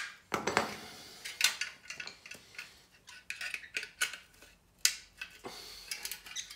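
Thin sterling silver scrap and hand tools clinking and knocking at uneven intervals as weighted candlesticks are pried and broken apart to free the cement fill and steel rod.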